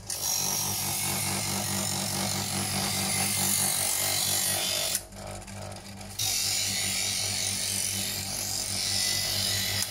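Chef's Choice 120 EdgeSelect electric knife sharpener running with a steady motor hum while a knife blade is drawn through its stage-three polishing slot, the steel grinding on the spinning diamond-abrasive discs. There are two long pulls, one for each side of the blade, with a break of about a second halfway through, when only the motor hum is left.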